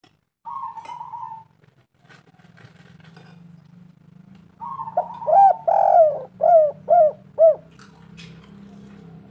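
Spotted dove cooing: one short coo about half a second in, then from about five seconds a longer phrase, a held note running into five quick arched coos.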